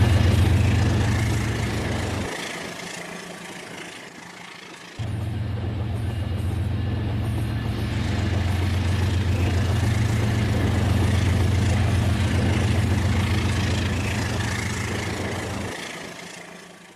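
Rail King toy train running: a steady low hum with rattling noise over it. The hum cuts out about two seconds in and starts again abruptly about three seconds later.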